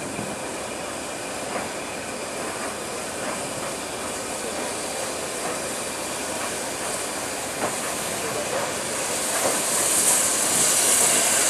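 LMS 3F 'Jinty' 0-6-0 tank engine No. 47406 moving slowly bunker-first with its train: a steady running noise with a few scattered clicks from the wheels and rails. Its steam hiss grows louder in the last couple of seconds as the engine draws close.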